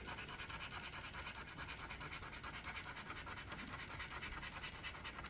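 Scratch-off lottery ticket being scraped: rapid, even back-and-forth scratching strokes rubbing off the ticket's coating.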